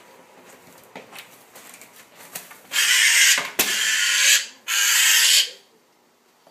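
Magpie held in a gloved hand giving three long, harsh rattling chatter calls one after another, starting about three seconds in; a scared bird's alarm chatter. Faint handling clicks come before them.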